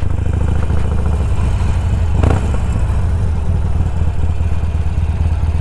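Cruiser motorcycle engine running at low speed, a steady low pulsing rumble, as the bike rolls slowly along.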